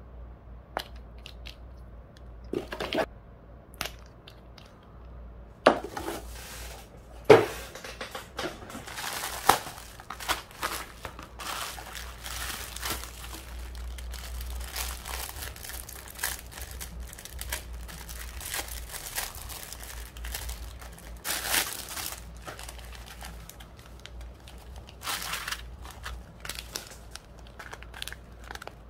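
Bubble wrap and plastic packaging crinkling and rustling as it is handled and unwrapped, with many sharp clicks and a few louder knocks, the loudest about seven seconds in. A faint low hum runs underneath.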